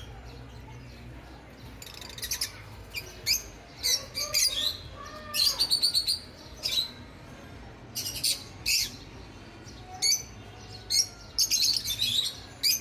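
Many caged lovebirds chirping: short, sharp, high-pitched chirps coming in quick irregular runs.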